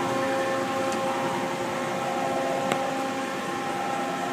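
A 1997 Mazak Quick Turn 20 CNC lathe running with a steady, quiet hum made of several even tones. There is no bearing or ball screw noise from its axes. A single sharp click comes a little past the middle.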